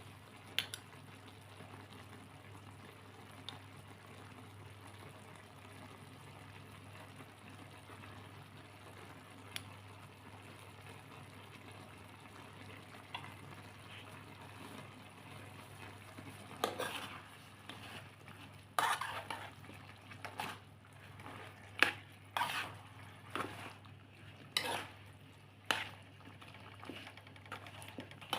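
Food cooking in a pan with a low steady sizzle over a faint hum; from about halfway a utensil scrapes and knocks against the pan as the food is stirred, roughly once a second.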